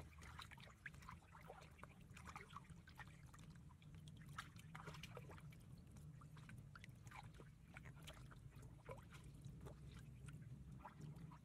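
Faint water sloshing and trickling, with many small scattered splashes, over a steady low hum.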